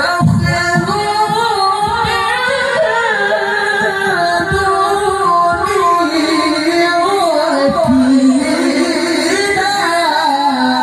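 A male qari reciting the Quran in the melodic tilawah style, amplified through a microphone: a high voice drawn out in long held notes with wavering ornaments, pausing briefly near the start.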